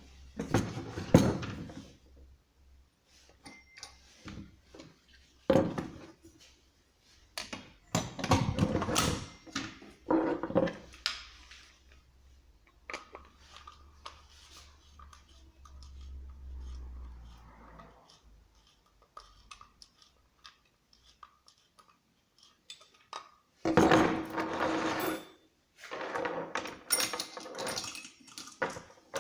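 Handling noises from unpacking a new chainsaw: irregular knocks, clatters and rustles in clusters, with a quieter stretch in the middle.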